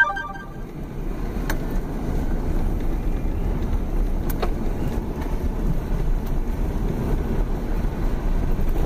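Jeep Grand Cherokee driving on a desert dirt road, heard from inside the cabin: a steady low rumble of engine and tyres, with two faint clicks from the body.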